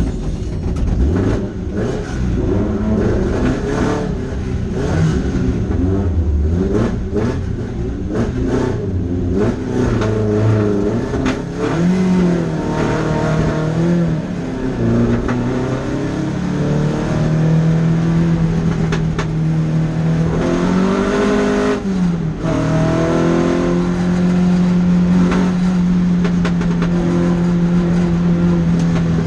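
Several classic sports-car engines idling together, their revs blipped up and down. About twenty seconds in, one engine revs up and drops back, then settles into a steady idle.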